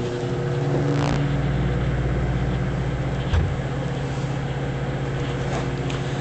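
Microwave oven running with a steady, even hum and a low rumble, heating a bar of soap. There is a single small knock about three seconds in.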